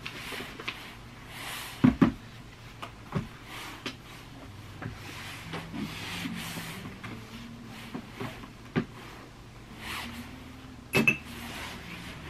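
A few knocks and thumps of things being handled, like cupboard doors or objects being set down, over soft rustling. The loudest are a double knock about two seconds in and another knock about eleven seconds in.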